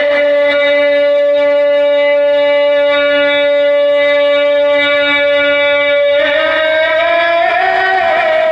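A man's voice, amplified through a microphone and PA, holds one long high sung note for about six seconds. The note then steps slightly higher and carries on.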